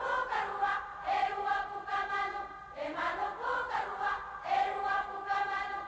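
A choir singing sustained chords from a film soundtrack, played back from reel-to-reel tape. There is a brief break and a change of chord a little before three seconds in.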